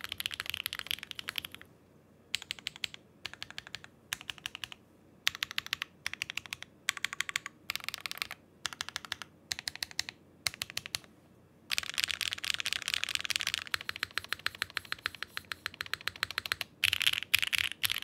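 Typing on a Daring Run Flip6p mechanical keyboard with a gasket-mounted polycarbonate plate: quick runs of keystroke clacks broken by short pauses, with a longer unbroken run about two-thirds of the way through.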